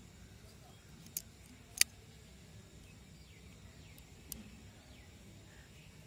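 Sharp metallic clicks from a Fengli RE102 folding knife being worked by hand at its lock: a faint click about a second in, a loud one just after, and another faint one past four seconds. Faint bird chirps in the background.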